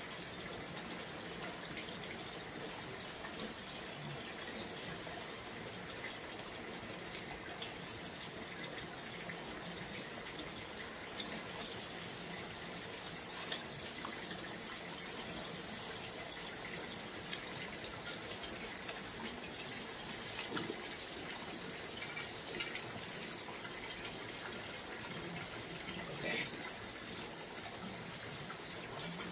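Water running steadily, with a few light clicks and knocks.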